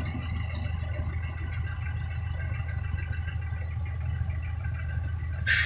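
Tata truck's diesel engine running steadily at low revs, a low even rumble with no revving, while the truck sits stuck in mud. Near the end a sudden loud hiss cuts in over it.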